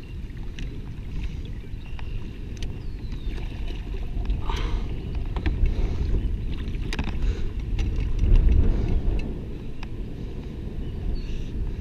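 Water lapping and splashing against the side of a kayak, under the low rumble of wind on the microphone, with scattered light clicks and knocks; the noise swells twice, loudest a little past the middle.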